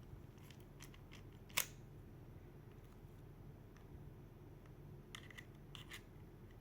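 A MIG welding torch being handled: faint clicks and light handling noise, with one short sharp click about a second and a half in and a few softer clicks near the end.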